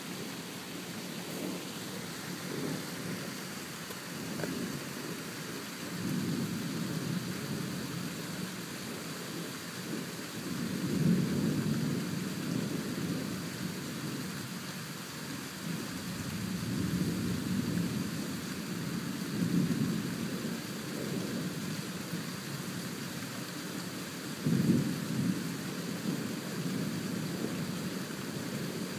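Thunder rumbling in several long rolls over steady rain, with a sharper, louder peal near the end.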